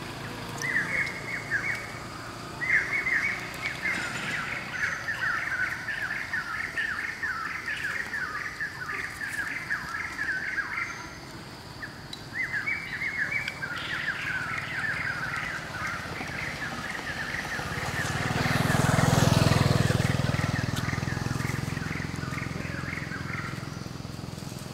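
Birds chirping in quick runs of short, repeated notes, with a short break about halfway through. Near the end a passing vehicle swells and fades, the loudest sound.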